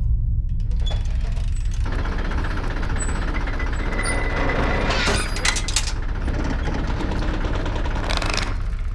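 Mutoscope being cranked, its reel of picture cards flicking past in a fast, continuous clatter over a low rumble, growing busier about five seconds in and again near the end.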